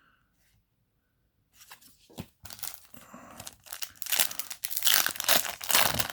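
A foil booster-pack wrapper crinkling and being torn open: a dense run of sharp crackles that starts about a second and a half in and is loudest near the end.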